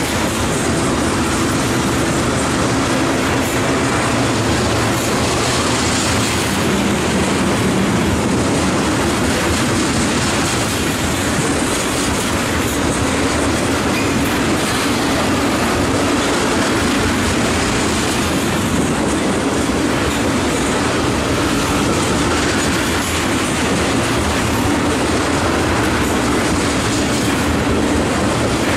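Freight train of ethanol tank cars rolling past, its steel wheels running on the rails in a steady, loud, continuous noise.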